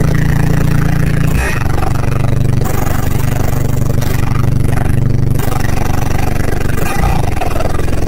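Two 12-inch Crack Audio subwoofers playing deep, sustained bass notes inside the car cabin, the notes shifting every second or two.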